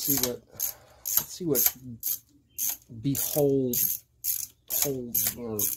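Ratchet wrench clicking in a dozen or so quick back-strokes, some short and some longer, as small bolts are backed out of an ATV engine case.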